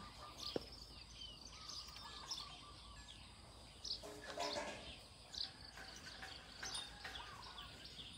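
Small birds chirping faintly, short high calls scattered throughout. A brief lower call comes about four seconds in.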